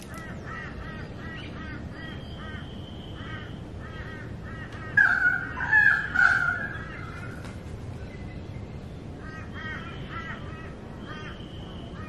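Birds calling outdoors: runs of quick, short repeated chirps, with a louder group of harsher calls about five seconds in, over a faint steady hiss.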